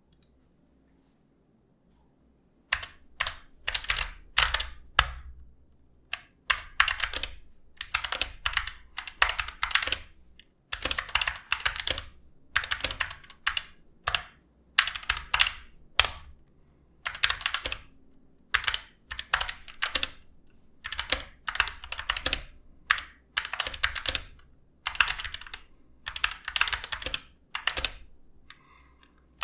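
Typing on a Gamakay MK61 60% keyboard with Gateron yellow optical switches and double-shot PBT pudding keycaps, as a sound test of the switches. The keystrokes come in quick runs of clacks with short pauses between them, starting about three seconds in.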